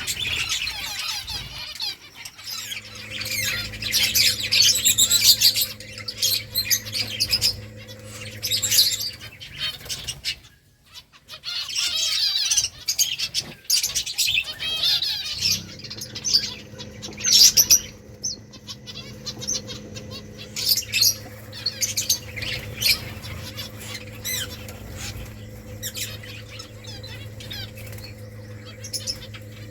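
A small flock of pet finches chirping, with many short high calls overlapping in busy stretches and the flutter of wings. A steady low hum runs under much of it, and everything drops away briefly about eleven seconds in.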